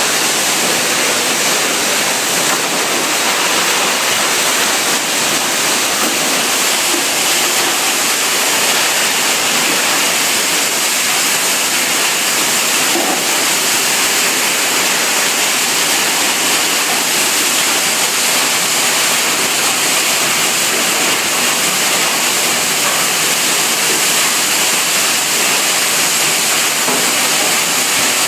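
Steady rush of water in a waste plastic washing machine, with no pauses or changes.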